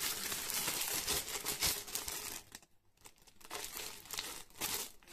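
Plastic bag of bread buns crinkling as it is handled, in two spells with a short pause a little past halfway.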